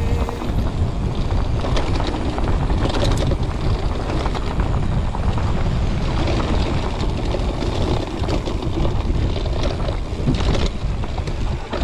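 Mountain bike descending rough dirt singletrack: wind buffeting the microphone, with the steady rattle and clatter of the bike and tyres over the bumpy ground.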